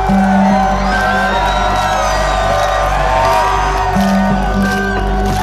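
Loud electronic dance music with a steady heavy bass and sustained bass notes, with a crowd whooping and shouting over it.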